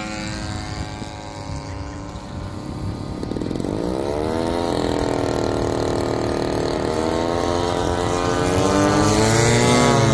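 Propeller-driven engine of a giant-scale radio-controlled model airplane flying overhead. The drone grows louder and rises in pitch a few seconds in, holds steady, then swells to its loudest and bends in pitch near the end as the plane passes close.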